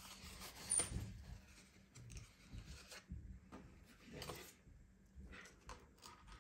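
Faint handling noises: hands rubbing and clicking against a spare lens-insert card and the frame of a pair of AR glasses, with scattered small taps, the sharpest a little before a second in.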